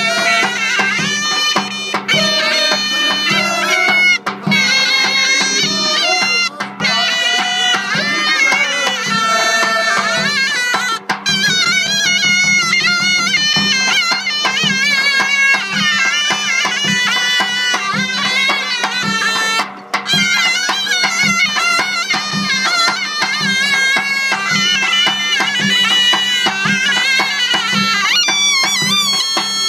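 Zurna, a shrill double-reed folk pipe, playing an ornamented, wavering dance melody over a steady low drone, with a drum beating underneath.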